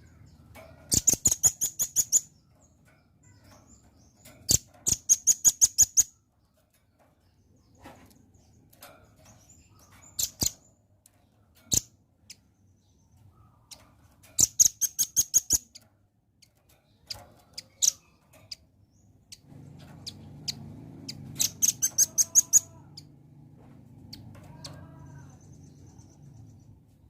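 Velvet-fronted nuthatch calling: rapid runs of sharp, high chips, each run about a second long, repeated about five times with pauses between, plus a few single chips.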